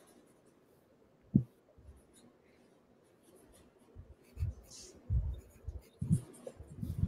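Writing on paper: after a single click about a second in, faint scratchy strokes begin about four seconds in, with soft low bumps on the table.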